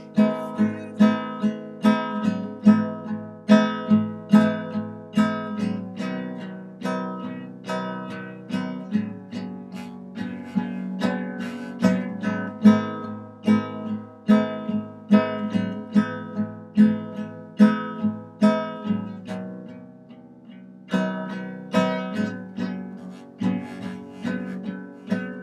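Instrumental acoustic guitar strumming chords in a steady rhythm, no singing. The playing softens briefly near the end, then picks up again.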